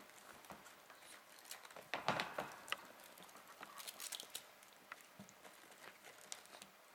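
Eight-week-old Foreign White Siamese kittens playing: faint pattering and scuffling of paws with light rustling and scratching, and a louder scuffle about two seconds in.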